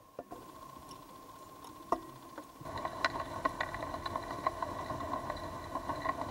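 A boat's engine heard through the water, a steady hum with rapid ticking that grows louder about two and a half seconds in.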